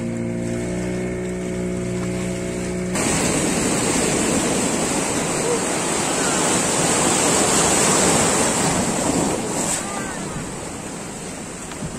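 Yamaha 15 hp petrol outboard motor running steadily. About three seconds in, its tone is swamped by a loud, even rush of breaking surf around the boat and wind on the microphone.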